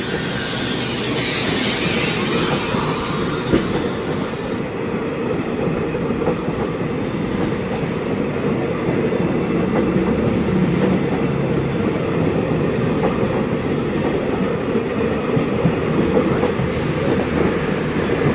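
Stainless-steel passenger coaches of a train rolling past, with a steady rumble and clatter of wheels on the rails.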